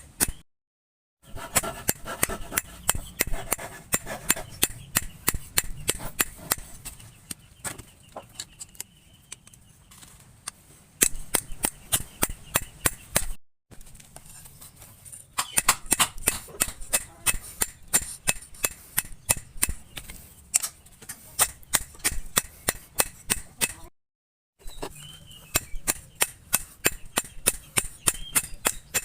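Steady hammer blows on hot steel on an anvil, about three to four strikes a second, each sharp and ringing, forging bearing steel into a blade. The hammering breaks off for a moment twice.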